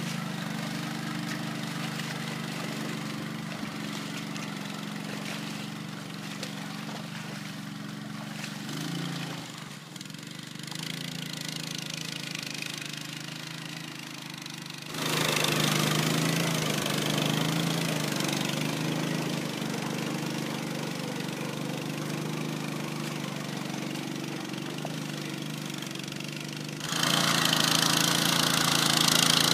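Small 5.5 hp engine of a JärnHästen tracked carrier running steadily under load as it tows a moose sled through a bog. The sound jumps abruptly louder about halfway through and again near the end.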